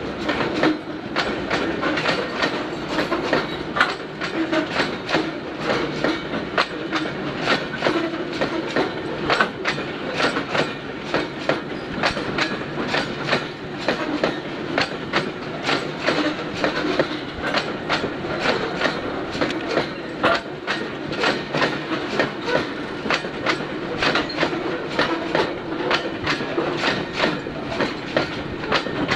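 Freight train of covered box wagons rolling past slowly, its wheels clicking over the rail joints in a steady run of clicks over a continuous rolling rumble.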